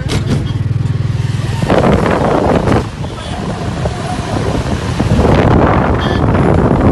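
Auto-rickshaw engine running as it drives, with wind buffeting the microphone loudly about two seconds in and again near the end.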